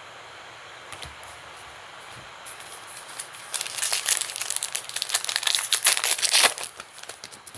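Trading card pack wrapper crinkling and being torn open, a dense crackle that starts about two and a half seconds in and stops about a second before the end.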